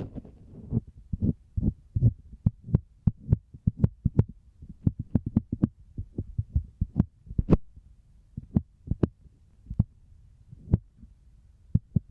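Fingertips tapping on the outer ear of a binaural ear microphone: a quick, irregular run of short, muffled thumps, several a second.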